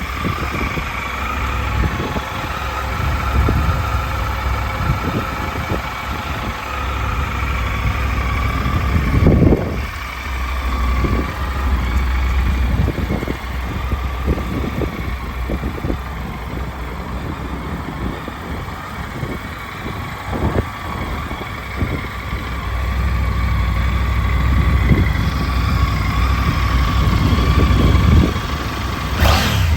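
Triumph Tiger 900 Rally's 900cc triple engine idling steadily.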